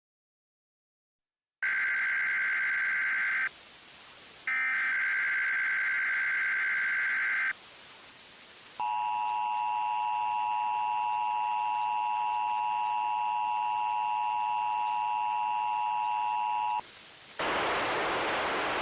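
Emergency Alert System broadcast test signal: two bursts of harsh, hissy digital data screech (the EAS header), then the steady two-tone attention signal for about eight seconds. After the tone comes a hiss of static.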